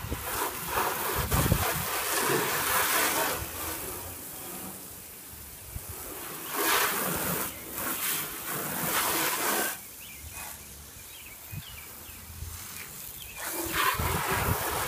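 Water from a garden hose spray nozzle hitting the side of a car as it is rinsed, spraying in three louder stretches with quieter gaps between.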